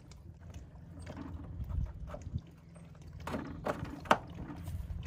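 Plastic retractable hose reel housing being hung back on its wall bracket: handling noise and three sharp knocks and clicks from about three seconds in as it seats in place.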